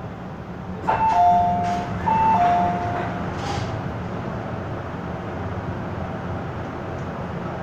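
A two-note descending electronic chime, sounded twice about a second apart, over the steady running hum of an MTR M-Train heard from inside the car.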